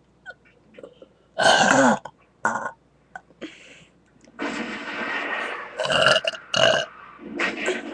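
A person burping repeatedly after gulping Coca-Cola: several loud burps, the loudest about one and a half seconds in, with a longer drawn-out stretch in the middle.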